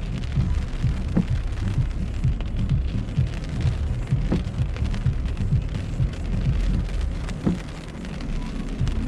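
Rain falling on a car's roof and windshield while driving, over a steady low rumble. A short swish recurs about every three seconds.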